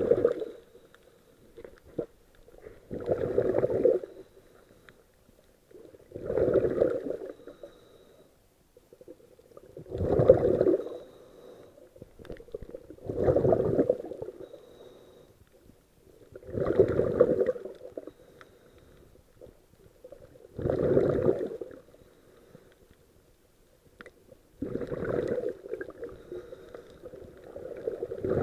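Scuba diver breathing through a regulator underwater: a burst of exhaled bubbles about every three and a half seconds, each lasting about a second and a half, with quiet gaps for the inhale between.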